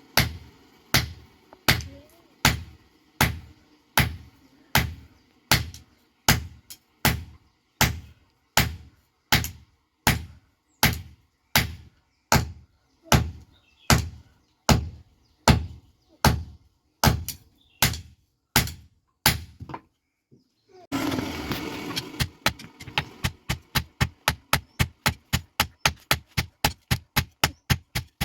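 Hand hammer striking a hot iron bar on an anvil, forging the handle for an uruli: steady single blows about one and a half a second. They stop about two-thirds through, and after a short pause and a stretch of noise come quicker, lighter blows about four a second.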